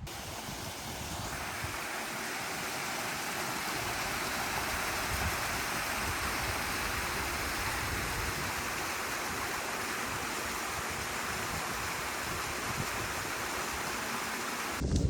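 Rushing water of a mountain stream, a steady even rush that swells a little over the first few seconds.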